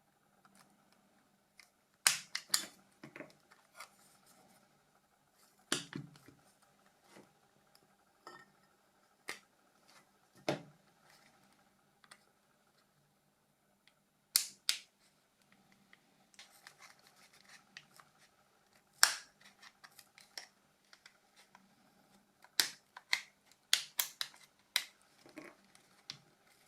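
Sharp plastic clicks and snaps at irregular intervals, with faint scraping between them: the clips of a Nokia E90's plastic body shell being pried loose during disassembly. The strongest snaps come about two seconds in, around the middle, and in a quick cluster near the end.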